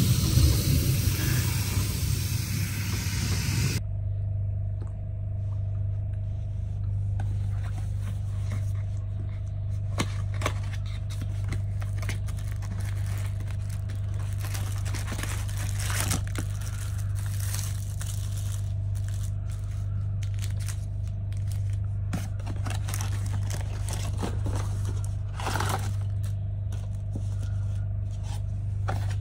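A tap runs strongly into a washbasin and stops about four seconds in. After that, plastic wrappers crinkle and a cardboard box rustles as a boxed amenity kit is unpacked, with scattered clicks and crackles over a steady low hum.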